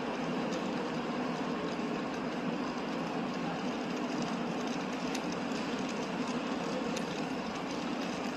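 Steady city street background noise: an even, constant hum of traffic and surroundings, with a couple of faint ticks.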